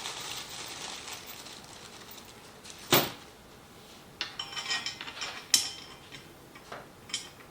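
Small metal assembly bolts clicking and clinking as they are handled and turned in by hand on a flat-pack end table, with a sharp knock about three seconds in and a run of quick clicks a little later.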